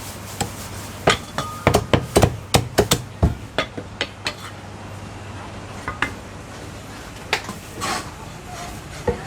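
Cleaver chopping roast meat on a chopping block: a quick run of about a dozen hard chops in the first few seconds, then single chops spaced out.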